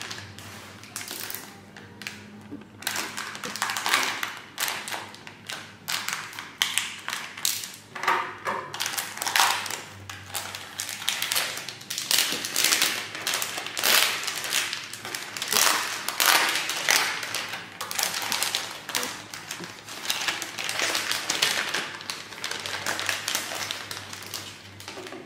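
Clear plastic packaging sleeve crinkling and rustling as a small softcover photobook is handled on a wooden table. It comes as a dense run of irregular crackles mixed with light taps of the book on the wood.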